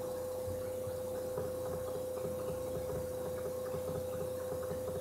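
A steady electrical hum on one tone, with faint soft ticks of a fingertip tapping a phone's touchscreen keyboard.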